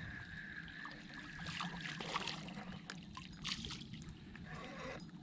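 Water splashing and trickling as a hooked shellcracker (redear sunfish) is brought in and lifted out of the water, with louder splashes about a second and a half in and again past three seconds.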